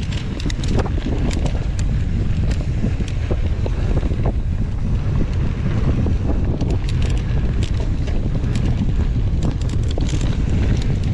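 Wind buffeting the camera microphone as a mountain bike rolls fast down a dry dirt and gravel trail. Frequent short clicks and rattles come from the tyres and the bike over the rough ground.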